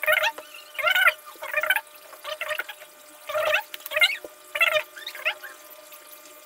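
Short, indistinct bursts of a man's voice, about one a second and muttered rather than spoken words, thin and without bass.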